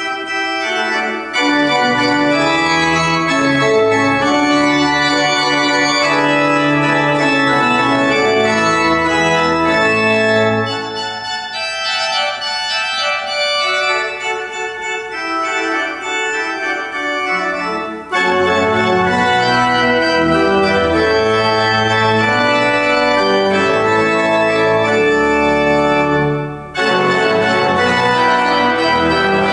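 Pipe organ playing a piece in sustained full chords over a deep pedal bass. Partway through the music drops to a softer passage without the bass, then returns to full sound, with a brief break shortly before the end.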